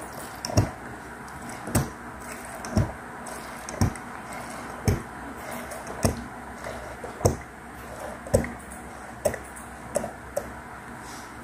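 Plastic bottle of sublimation ink emptying into an Epson L121 printer's black ink tank, with a short soft pop about once a second, ten or so in all.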